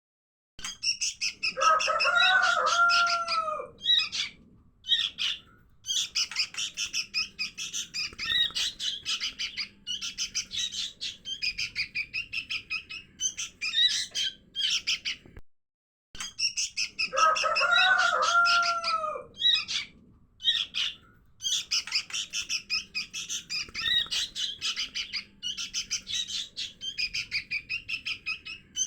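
Lure recording of sooty-headed bulbul (kutilang) fledglings: dense, rapid high begging chirps and squawks, with a brief lower arched call near the start. The recording loops, breaking off for a moment about halfway through and then repeating the same sequence.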